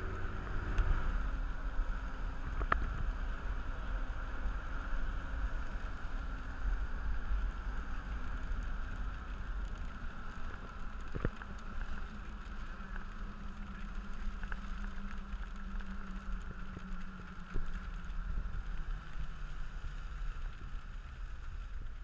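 Steady low rumble of a car driving along a wet road, with a faint steady hum over it and a couple of light knocks, about three seconds in and about eleven seconds in.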